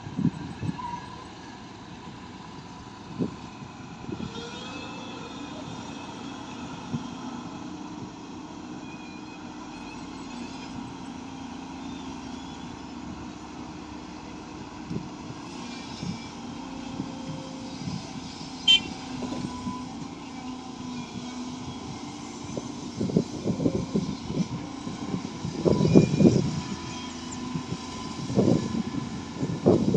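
Heavy machine's diesel engine running steadily, with scattered knocks and clanks that grow louder and more frequent near the end.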